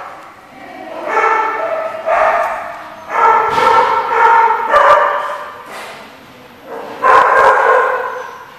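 Dogs vocalizing while they wrestle in play: about four drawn-out, pitched calls of a second or so each, with a few sharp clicks in between.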